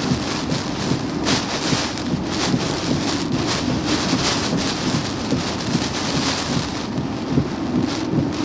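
Heavy hurricane rain and wind driving against a vehicle, heard from inside. The noise is dense and constant, with short surges as gusts and sheets of rain hit.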